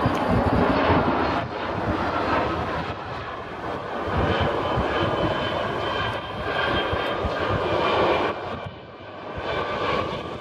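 Jet airliner engines passing on landing approach: a loud rush of noise with a thin high whine in it, easing off about eight seconds in before another swell of engine noise near the end.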